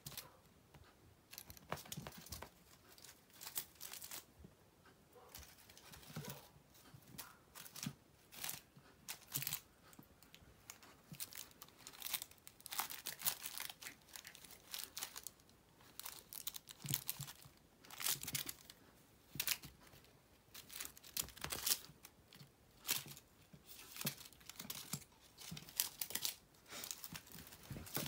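Crinkling and rustling of a cat wand toy's metallic foil pom-pom and ribbon, in short irregular bursts as a kitten bats and wrestles it.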